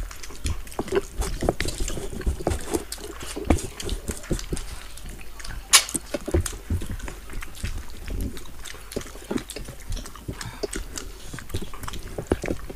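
Close-miked wet eating sounds: people chewing curried fish head and rice with lip smacks, and fingers mixing rice on steel plates. One sharper click stands out about six seconds in.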